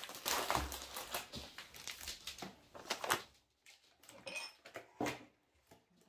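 Plastic food packets crinkling and rustling as they are handled and moved, then a few separate knocks as items are set down on a wooden table, with one brief ringing clink about four seconds in.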